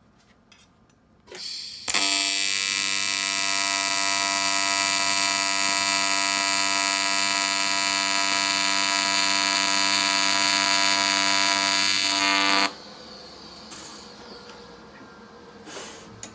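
AC TIG welding arc on aluminum intercooler piping, a loud steady buzz that strikes about two seconds in after a short burst and cuts off suddenly near the end. A fainter steady hum remains after the arc stops.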